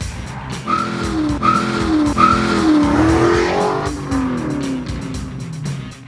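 2015 Dodge Challenger SRT 392's 6.4-litre Hemi V8 accelerating hard, its note climbing in three quick rising steps, then falling steadily in pitch as the car goes by. Background music plays underneath.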